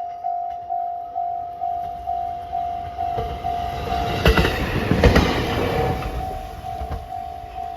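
A Japanese railway level crossing's warning bell rings steadily, a little over two strikes a second. From about three to six seconds in, a short train passes over the crossing, its wheels knocking sharply twice on the rail joints.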